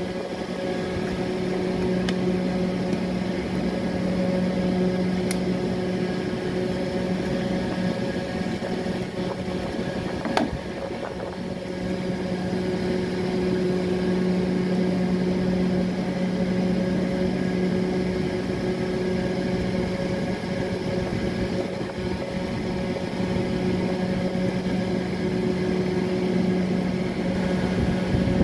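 A steady motor hum with a low, even tone, and one sharp knock about ten seconds in.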